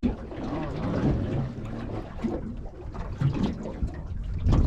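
Wind buffeting the microphone and water slapping against the hull of a small drifting boat, with a few knocks and some muffled talk.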